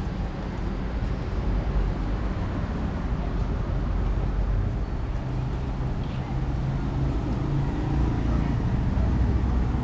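City street traffic: a steady, deep noise of vehicles running and passing, growing a little louder near the end.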